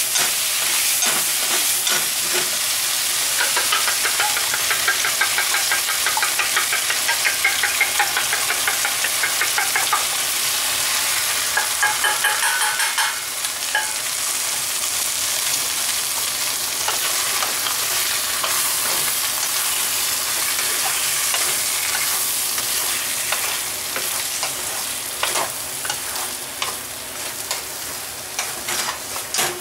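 Bitter melon, tofu and pork sizzling in a frying pan while a wooden spatula stirs and scrapes them. About halfway, eggs go into the pan and the sizzle drops a little, then stirring carries on with light knocks of the spatula on the pan near the end.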